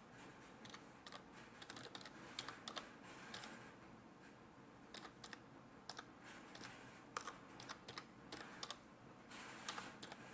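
Faint typing on a computer keyboard, the keystrokes clicking in short, uneven runs.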